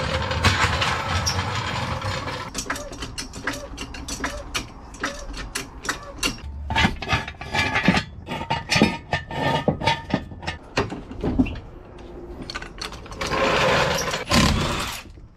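Steel clanks, clicks and rattles from a hydraulic floor jack and ratcheting jack stands as a car is raised and set onto the stands. Longer rattling noise near the start and near the end fits the jack being rolled over concrete.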